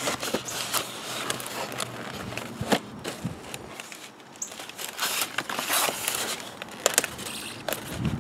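Cardboard box and packaging being handled and opened: rustling with many scattered clicks and crackles.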